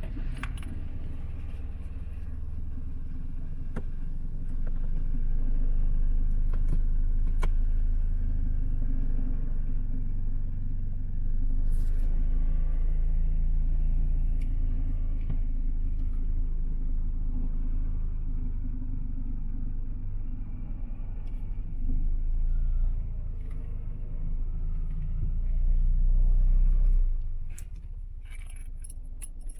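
Fiat 126p's air-cooled two-cylinder engine running cold on the choke, getting louder about five seconds in, then dropping away near the end.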